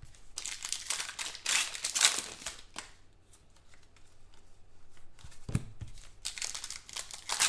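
Football trading cards being handled: card stock sliding and flicking against itself as the cards are sorted through, in several short stretches of rustling, the loudest about two seconds in.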